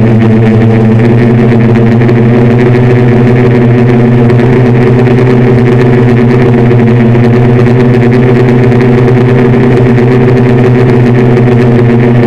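Hexacopter's six brushless motors and 10-inch propellers buzzing loudly and steadily in flight, heard close up from on board, the pitch holding almost level.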